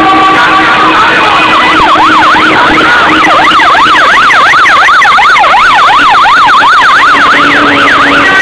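Police car siren in a fast up-and-down yelp, three to four sweeps a second, over loud rushing noise.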